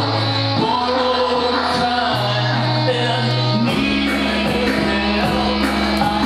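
Live band music in a concert hall: electric bass and violin play an instrumental passage, with long held bass notes that change pitch every second or two under light cymbal strokes.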